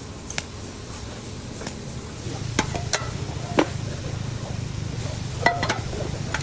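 TIG welding on a stainless steel pipe joint: a low, steady arc hum that starts about two seconds in, with several sharp metallic clicks and ticks.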